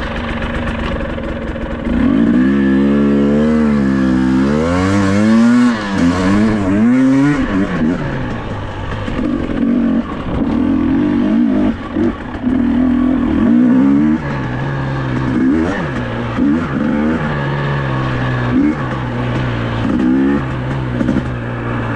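Husqvarna 250 two-stroke enduro motorcycle engine pulling away about two seconds in, then revving hard. Its pitch climbs and drops again and again with throttle and gear changes as it rides a dirt trail.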